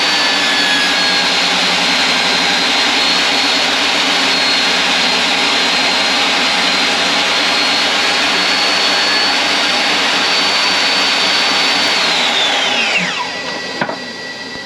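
Table saw fitted with a 6mm grooving blade running at speed with a high steady whine, then switched off about twelve seconds in, its pitch falling as the blade spins down. A single click comes near the end.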